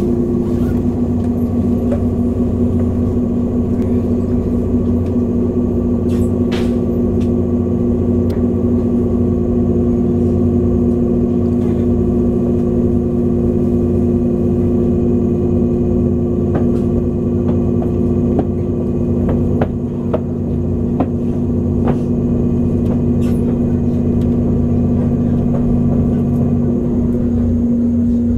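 Cabin noise inside a JR 485-series electric train leaving a station and running on: a steady rumble with a constant hum, broken by a few scattered sharp clicks.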